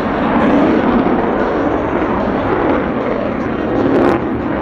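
Fighter-jet noise from an F-22 Raptor's two Pratt & Whitney F119 turbofan engines during a display pass: a loud, steady jet noise that swells briefly, with a sharp crackle, about four seconds in.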